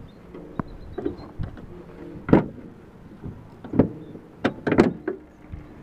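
Truck hood being unlatched and lifted: a series of sharp metal clicks and clunks, the loudest about two seconds in and a quick cluster near the end, over a faint steady hum.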